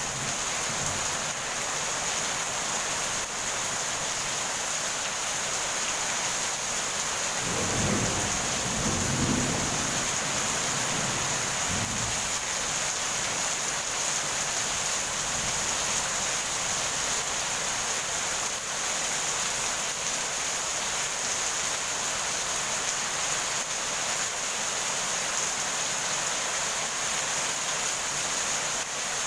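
Heavy rain falling steadily, with a low rumble of thunder rolling for several seconds about a quarter of the way in.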